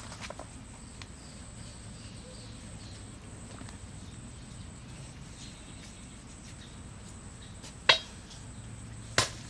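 Two sharp wooden knocks near the end, about a second apart, as a machete strikes a wooden stake set in the ground, over a faint background with a few high insect or bird chirps.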